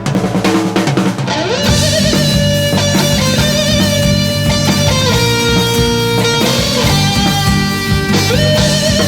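Rock band playing an instrumental passage: electric guitar over bass and drums, with the full band coming in about a second and a half in.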